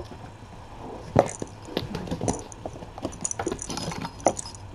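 Kittens scampering and playing with toys: a busy run of light taps, knocks and small clinks, with a sharp knock about a second in and another near the end.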